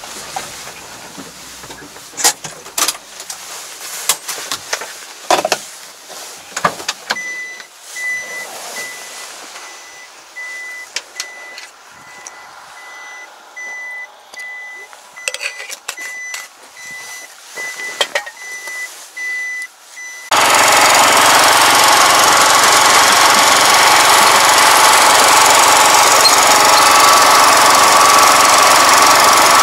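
Scattered knocks and clatter with a repeated high beeping. About two-thirds of the way in, a loud small engine on a walk-behind soil fumigant injector cuts in abruptly and runs steadily.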